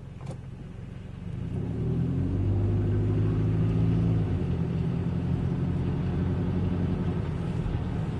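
Car engine picking up about a second in and then running steadily under load as the car drives on, with a small click just after the start.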